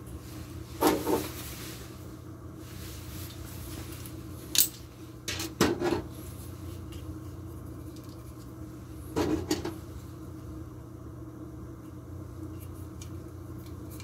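Hard plastic clicks and clatters from a small cordless handheld vacuum cleaner being handled, in four short bursts over a faint steady hum. Its motor is not running.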